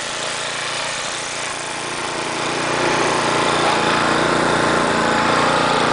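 A small engine running steadily, growing louder about halfway through.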